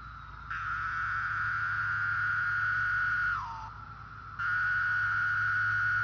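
Periodical cicada singing loudly: two long buzzing calls on one steady pitch, the first sliding down in pitch as it ends about three and a half seconds in, the second starting soon after. A fainter steady chorus of more cicadas runs underneath.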